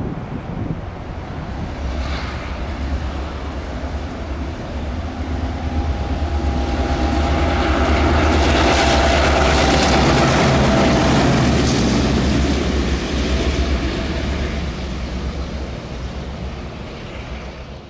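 Two EMD-engined Victorian Railways heritage diesel locomotives, a B class and an S class, running light. Their engines hum as they approach, grow loudest as they pass close by about eight to twelve seconds in, and fade as they move away, with wheel and rail noise mixed in at the peak.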